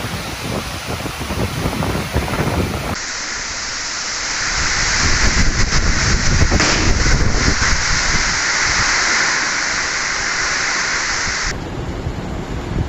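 Heavy rain and wind from a tropical cyclone, a dense steady rush of noise. It changes abruptly twice as one clip cuts to another, and is heaviest in the middle.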